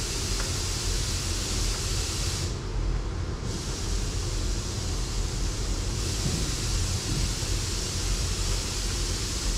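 Steady hiss with a low rumble underneath, and no distinct event standing out.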